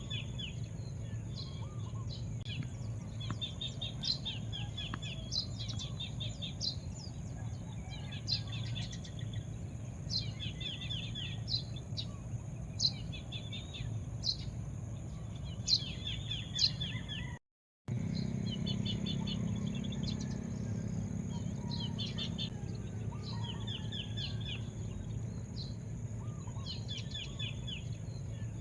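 Small birds chirping over and over: a sharp high note followed by a short run of quick chirps, repeated every second or so. Underneath is a steady low rumble of outdoor background noise. The sound drops out completely for a moment about seventeen seconds in.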